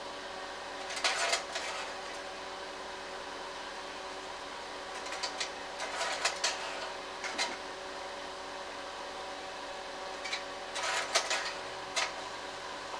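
Slide projector running with a steady fan and motor hum, broken three times by bursts of clicking and clatter from the slide-change mechanism, the middle one the longest, as a slide is pulled and the next dropped in.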